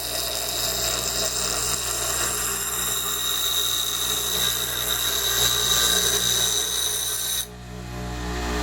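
A power tool running steadily with a high whine, cutting off suddenly near the end.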